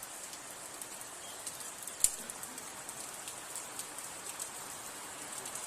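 Rain falling: a steady hiss with many small scattered drop ticks, and one louder sharp tick about two seconds in.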